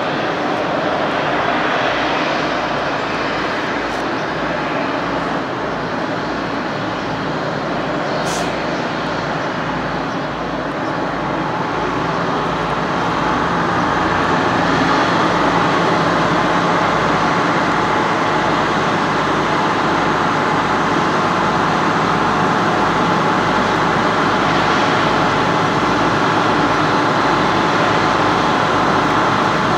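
Steady jet aircraft whine and rumble; about 13 seconds in a higher whine of several steady tones comes in and the sound gets a little louder, then holds.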